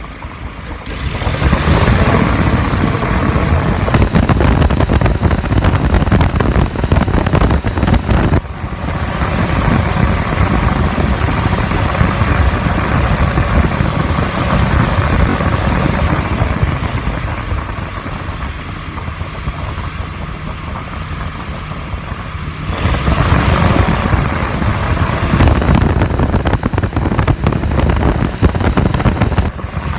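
A motor running loudly and steadily. It comes up about a second in, drops briefly near 8 seconds, runs quieter from about 17 to 22 seconds, then gets louder again.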